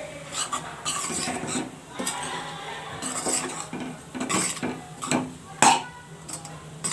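A metal spatula scraping and stirring wheat flour in a metal kadhai, its edge grating against the pan in irregular strokes about once a second. The flour is being roasted in ghee.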